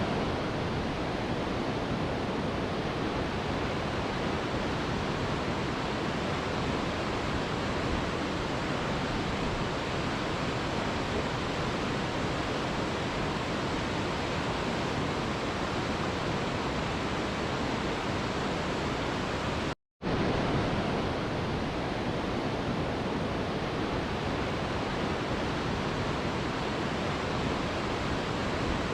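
Waterfall rushing in a steady, even roar of noise. It cuts to silence for a split second about twenty seconds in, then carries on as before.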